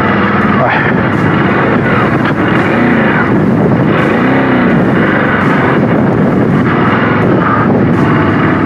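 Ducati Desert X's V-twin engine running off-road, its revs rising and falling several times, under a loud, dense rumble with a few sharp knocks.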